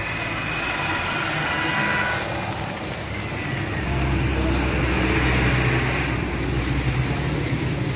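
Machinery running steadily. A high whine stops about two seconds in, and a low motor rumble comes in about four seconds in.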